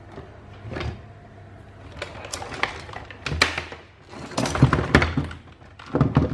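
Handling noise: a circuit board and its wires being moved about on a concrete surface, giving scattered clicks and knocks, with a cluster of louder knocks a little past the middle.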